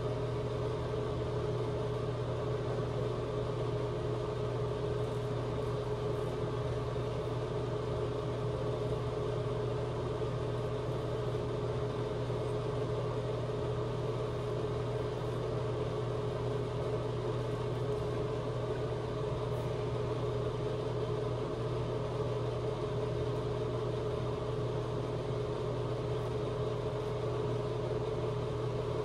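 Steady low motor hum with two held tones, unchanging throughout, with a few faint scrapes of a straight razor drawn through lathered stubble.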